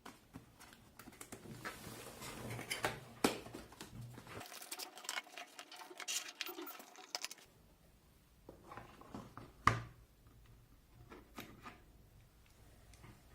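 Packaging of a digital caliper being handled and opened: rustling with many irregular light clicks and taps in the first half, one louder sharp click about ten seconds in, then a few scattered ticks.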